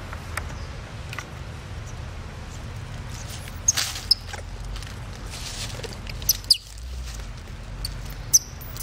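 Several short, high-pitched animal squeaks: a pair about four seconds in, another pair at about six and a half seconds, the second with a falling tail, and one more near the end. A steady low rumble runs underneath.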